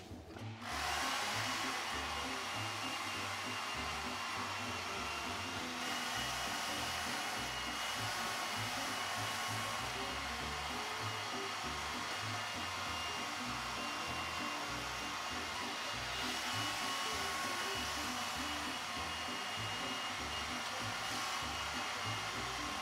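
Electric carving knife running steadily, its motor whirring as the reciprocating twin blades slice through a cooked ham joint. It switches on about a second in.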